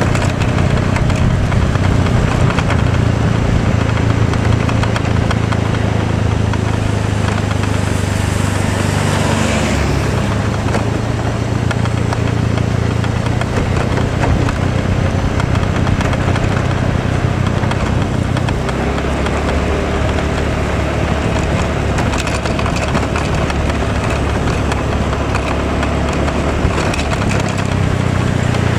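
A road vehicle's engine running steadily with tyre and road noise while driving, its low note shifting about ten seconds in and again a little before twenty.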